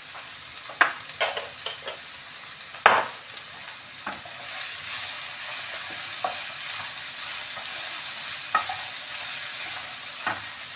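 Sliced onions and capsicum sizzling in oil in a nonstick kadai. A wooden spatula stirs them, knocking and scraping against the pan every second or two, with the sharpest knock about three seconds in.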